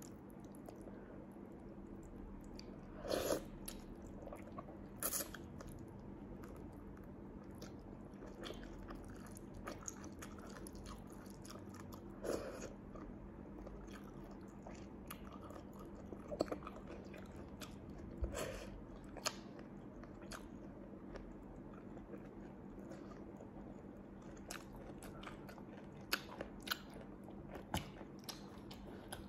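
Close-up eating sounds of a person chewing and sucking the meat of small sea snails and sauce-dipped cabbage, with a few sharp, louder mouth sounds spaced several seconds apart and a run of quick clicks near the end.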